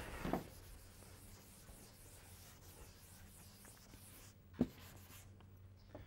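Blackboard duster rubbing across a chalkboard in a short burst at the start, then faint scraping over quiet room tone. One sharp knock about four and a half seconds in.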